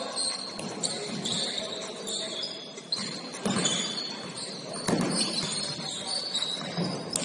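Basketball sneakers squeaking on a hardwood gym court in a series of short, high squeals, with a couple of thuds of the ball bouncing, in a hall that echoes.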